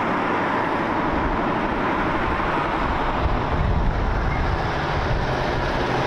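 Scania semi-truck hauling a tanker trailer, driving by with steady diesel engine and tyre noise; the low engine rumble swells a little midway.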